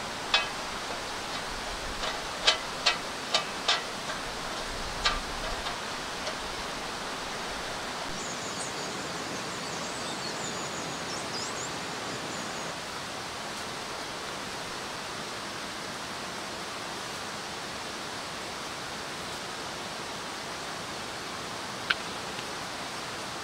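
Steady outdoor rushing noise, even and unbroken. A handful of sharp clicks come in the first five seconds and one more near the end, with faint high chirps around the middle.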